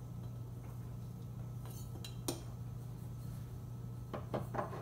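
A few light clicks and clinks of a measuring spoon and glass jars being handled on a kitchen counter. The sharpest comes about two seconds in and a quick cluster follows near the end, over a steady low hum.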